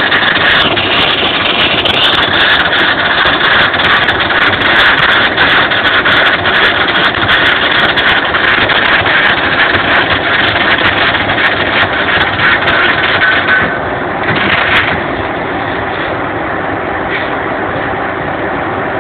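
Arc welding: the welding arc crackling and spitting steadily, with a short final burst after it stops about fourteen seconds in. A lower steady hum remains afterwards.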